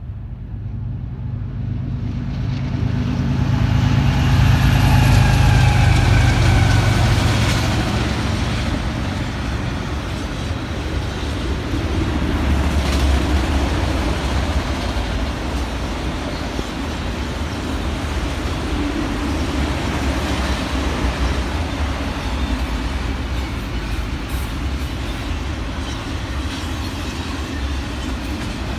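Union Pacific freight train's diesel locomotives approaching and passing, their engine rumble loudest about five seconds in and their whine dropping in pitch as they go by. After them comes the steady rolling rumble and wheel noise of autorack and double-stack container cars passing, with an occasional clank.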